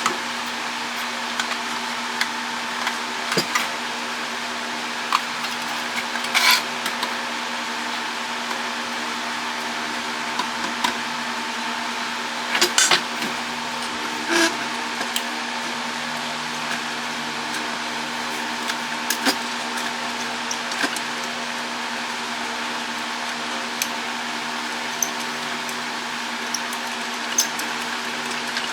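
Scattered clicks and knocks of plastic and metal parts being handled while an internet router is taken apart, a few sharper clatters among them, over a steady background hum.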